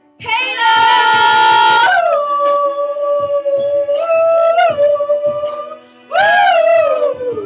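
Pop song with a steady beat and a singing voice holding long notes: a bright high note first, then lower held notes, and a note that slides down near the end.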